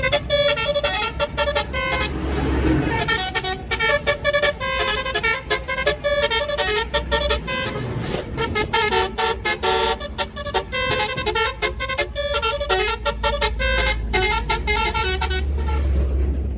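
Tour bus's telolet basuri multi-tone horn playing a fast melody of quickly changing notes, over the low rumble of the bus engine.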